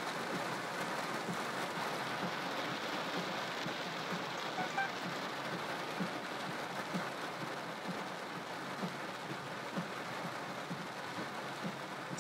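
Heavy rain falling steadily on a car's roof and windshield, heard from inside the car.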